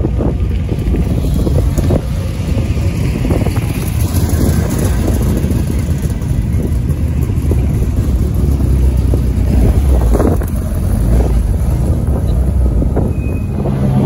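A competition car's engine running on a sprint course, heard under heavy wind rumble on the microphone.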